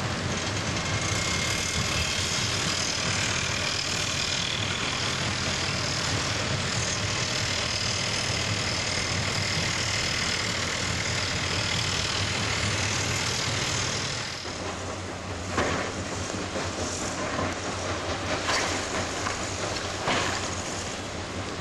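Heavy construction machinery running with a steady engine hum. About two-thirds of the way through the hum eases and several sharp knocks or clanks are heard.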